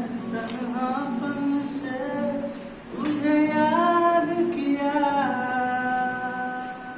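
A young man singing, with a strummed acoustic guitar accompanying him; the voice grows louder about three seconds in and holds a long note from about five seconds in.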